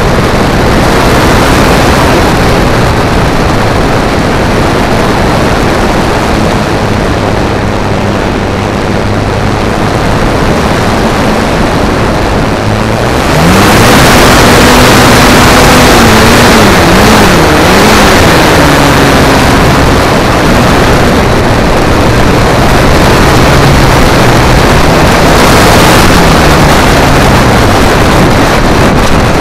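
Model airplane's motor and propeller droning under heavy wind rush on an onboard camera. About 13 seconds in it gets louder and its pitch rises and wavers up and down before settling lower, then drops near the end.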